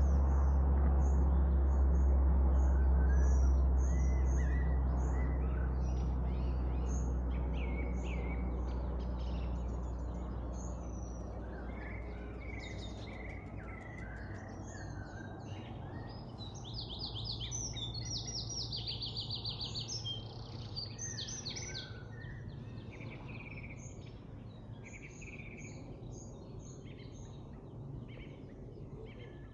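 Low rumble of an airplane passing overhead, loudest in the first few seconds and fading away over the first ten seconds or so, with many birds chirping and calling throughout.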